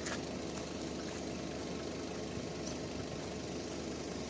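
Steady background hum with faint engine-like tones and no distinct events.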